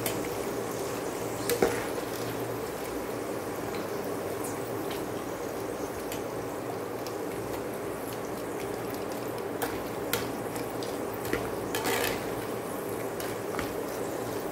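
Rice-flour papads deep-frying in hot oil, a steady bubbling sizzle. A wire-mesh skimmer clinks against the aluminium pan a few times.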